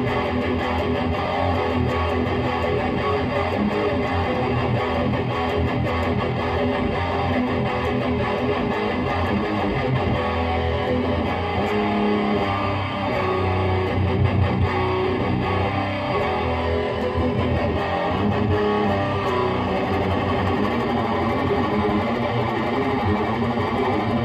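2007 Gibson Les Paul electric guitar played continuously through a Lone Wolf Audio Bullet Belt pedal into a Peavey 6505 amp and a 2x12 cab with Texas Heat speakers.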